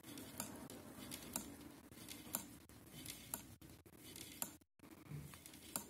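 Knitting needles clicking faintly and irregularly as stitches are worked, with soft rustle of yarn being handled.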